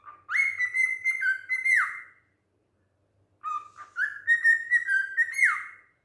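Cockatiel whistling two similar phrases, about two seconds each. Each opens with a short low note, jumps to a higher whistle that steps down and back up between two pitches, and ends with a quick downward slide.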